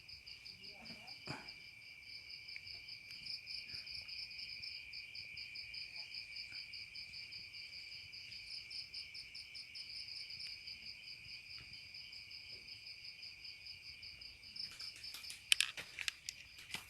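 Insects trilling steadily in a fast, even pulse, with a few sharp clicks near the end.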